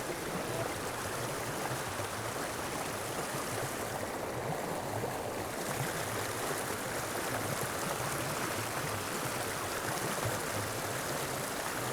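Steady rush of a small mountain creek's flowing water, running swollen.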